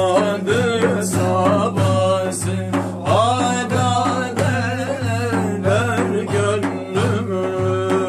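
Men singing a Turkish Sufi ilahi together, over a steady percussive beat.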